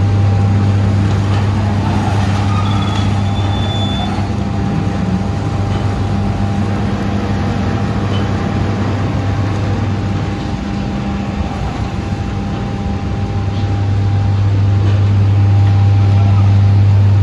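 Sugar mill cane-handling machinery running with a loud, steady low hum. The hum eases for a few seconds past the middle, then comes back.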